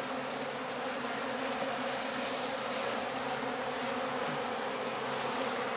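Many honeybees buzzing steadily around an opened hive box as a frame of brood comb is lifted out, an even, unbroken hum.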